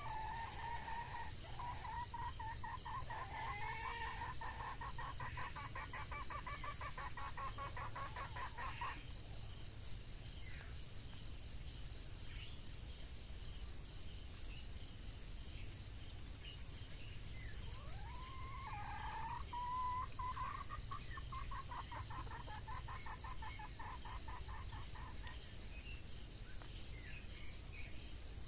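Red junglefowl calling: two long runs of rapid, pulsed clucking calls, each opening with a rising note. The first lasts about nine seconds, and the second starts about eighteen seconds in and lasts about eight. Insects drone steadily and high-pitched underneath.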